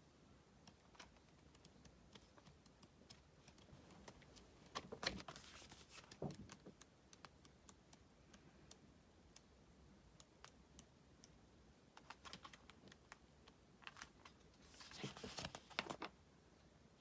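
Faint handling of a CD album's packaging and contents: scattered light clicks and taps, with two louder spells of rustling and crinkling, about five seconds in and again near the end.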